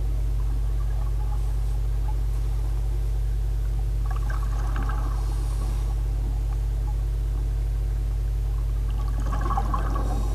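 Steady low rumbling hum of underwater ambience, with faint watery crackles about four seconds in and again near the end.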